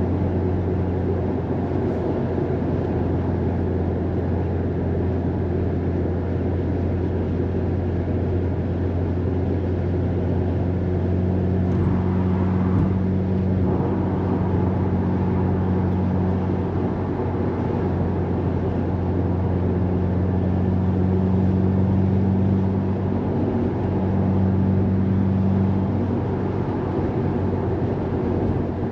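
Subaru WRX STI's turbocharged flat-four heard from inside the cabin, holding a steady drone at an even speed over a constant road-noise hiss.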